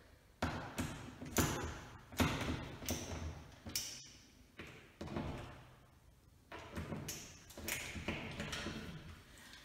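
Irregular taps, knocks and scrapes, one or two a second, as the screws of a smoke alarm's mounting base are tightened into the ceiling.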